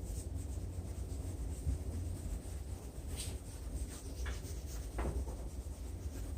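Fine-grit side of a sanding pad rubbed by hand over a plastic headlight lens, a steady scratchy rubbing with a few sharper scrapes around the middle, over a low steady rumble.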